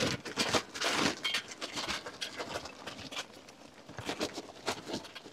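Jealous Devil hardwood lump charcoal being poured from its bag into a Weber kettle grill: large chunks tumbling and clinking against each other and the grill's steel in an irregular clatter. The clatter is busiest at first, thins out in the middle, and picks up again about four seconds in.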